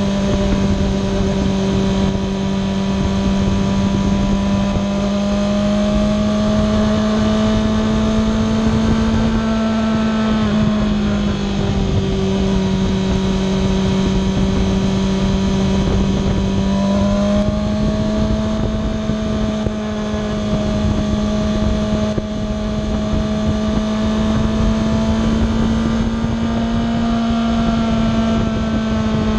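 Kawasaki ZX-6R's inline-four engine running at a steady cruise, heard from a GoPro mounted on the motorcycle over a steady rush of noise. Its pitch dips slightly about ten seconds in and rises again about seven seconds later.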